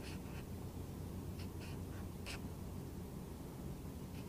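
Felt-tip marker drawing on paper: a few faint, short scratchy strokes, the clearest about two seconds in, over a low steady room hum.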